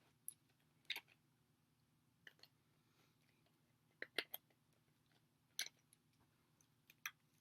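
Light, scattered clicks and taps of skateboard wheels and bearings being handled and fitted, about ten short sharp ticks with near silence between them.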